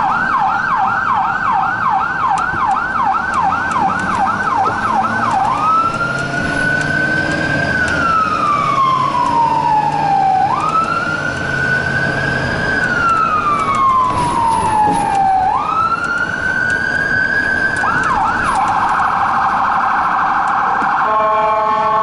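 Electronic emergency siren of a responding rescue truck, heard from inside its cab. It starts on a fast yelp of about three sweeps a second, changes about six seconds in to a slow rising and falling wail, and near the end switches briefly to a rapid warble and then a steady buzzing horn tone.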